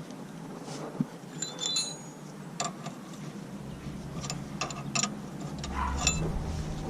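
Small metal parts and tools clinking and tapping while being handled: a series of sharp clicks, several with a short bright ring, with a cluster about a second and a half in and more in the second half.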